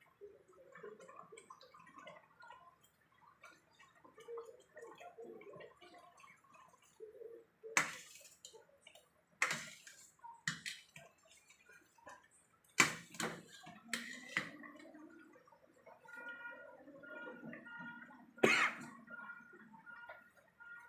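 Thick meat-and-cheese pasta sauce bubbling and popping softly in a pan while it simmers, with a utensil clanking sharply against the pan about half a dozen times as it is stirred.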